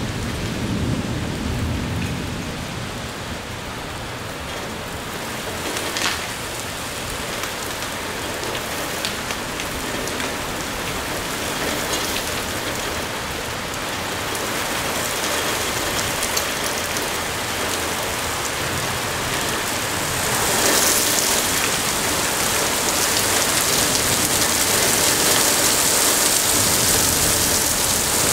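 Heavy thunderstorm rain pouring steadily onto pavement, roofs and cars, with a low rumble of thunder dying away in the first couple of seconds. One sharp tap about six seconds in, and the downpour grows heavier and louder about twenty seconds in.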